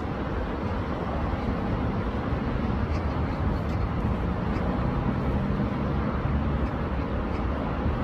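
Steady rushing of a rain-swollen stream running high and muddy, a dense even water noise weighted to the low end. A faint low hum joins it about halfway through.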